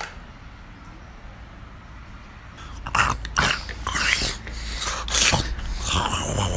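Animal calls: a run of short calls starting about three seconds in, after a quiet first part.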